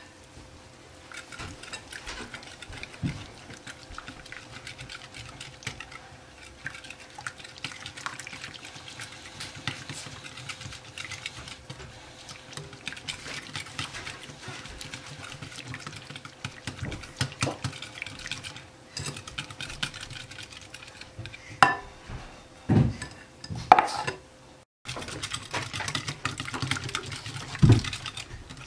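Small wire balloon whisk beating eggs, evaporated milk and condensed milk in a glass bowl: a steady stream of quick ticks and scrapes as the wire tines hit the glass, with a few louder knocks near the end.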